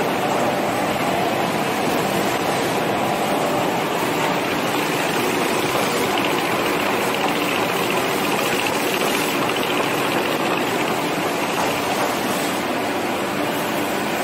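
Fully automatic toilet-roll and kitchen-towel rewinder production line running: a loud, steady machine din with a faint hum of steady tones in it.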